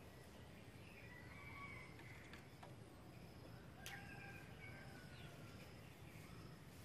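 Near silence with faint bird chirps and short whistled notes, and a few light clicks about two and a half and four seconds in.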